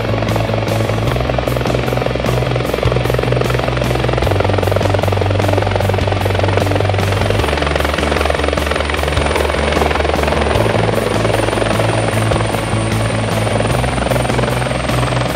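Rescue helicopter's main rotor and turbine running close by: a steady rhythmic rotor chop with a thin high turbine whine that dips slightly near the end. Background music with sustained bass notes plays underneath.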